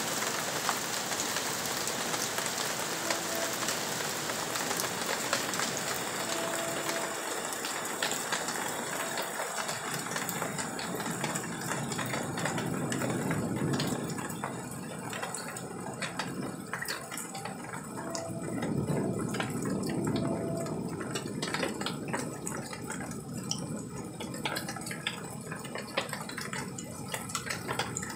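Steady rain hissing and pattering with scattered drips; the hiss thins out about halfway through. Two low rumbles of a couple of seconds each come in the middle.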